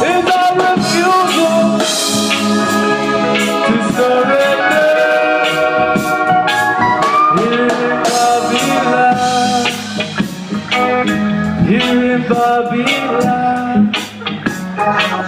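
Live reggae band playing an instrumental break: organ-toned keyboard and electric guitars over a bass line and drums keeping a steady beat.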